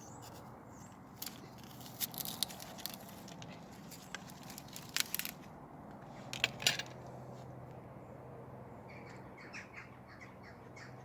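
A few sharp clicks and crackles in small clusters, with faint bird chirps near the end.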